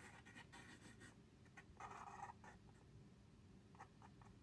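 Near silence with faint scratching and a few light ticks of paper being handled, and a brief soft rustle about two seconds in.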